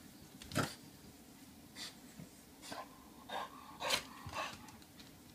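French bulldog snorting and sniffing in about six short bursts, the loudest about half a second in and near four seconds.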